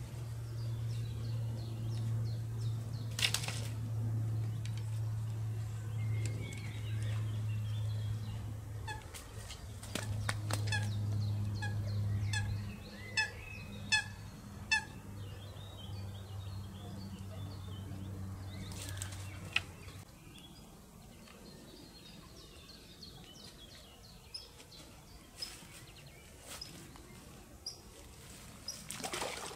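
Birds calling at a lake, with a quick run of repeated calls near the middle, over a steady low hum that stops about two-thirds of the way through. A few sharp knocks are scattered through.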